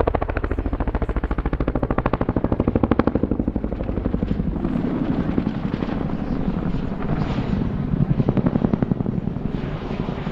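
RAF Boeing CH-47 Chinook's tandem rotors beating in a rapid, even chop as it flies low overhead. The beat swells louder about two to three seconds in and again near eight seconds.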